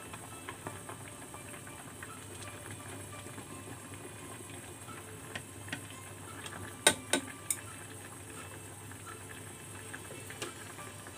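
Noodle soup boiling in a stainless steel pot, a steady bubbling with small ticks and pops, stirred with chopsticks. A little past halfway come three sharp knocks close together as the wooden chopsticks strike the pot.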